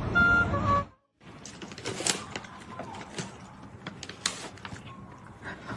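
A short bit of flute music cuts off about a second in. After a brief silence comes a noisy stretch with scattered sharp clicks and knocks, like something mechanical being handled.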